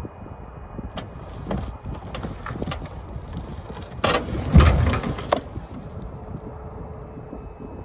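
Oak log rounds knocking together and thudding down as a tree service truck dumps its load: a few sharp knocks, then a loud clattering crash with a heavy thud about four seconds in. Wind buffets the microphone throughout.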